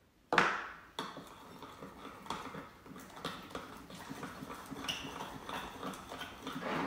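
A spoon stirring and working slime in a glass bowl: a sharp clack about a third of a second in, then a run of irregular sticky clicks and knocks of the spoon against the glass.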